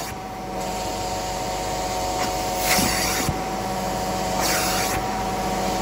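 Carpet-cleaning machine running with a steady whine, and a hiss that swells and fades a few times as it sprays and extracts on the stained carpet.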